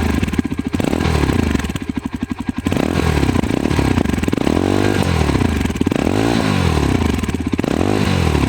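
Yezdi Adventure's single-cylinder engine blipped through its exhaust about six times, each rev rising and falling back toward a pulsing idle, with the engine's thump.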